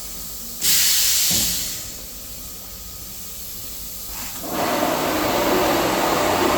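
Rainbow-curtain fabric cutting machine at work. A sudden sharp hiss comes about half a second in and fades over a second or so. About four seconds in, a steadier, lower rushing noise starts and runs on.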